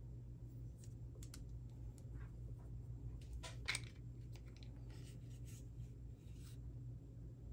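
Small clicks and scrapes of a Streamlight TLR-7A weapon light being handled and slid onto the accessory rail of a SCCY CPX-1 pistol. The loudest click comes a little past halfway, as the light seats on the rail, followed by softer scraping.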